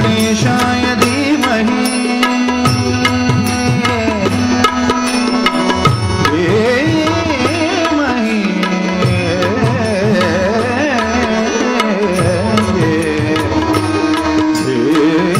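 Indian classical-style devotional music: a man sings a wordless, heavily ornamented line, holding long notes and sliding up and down in fast turns through the middle of the passage, over steady hand-drum strokes.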